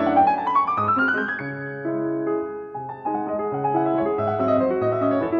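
Background piano music: a quick rising run of notes in the first second and a half, then slower held chords.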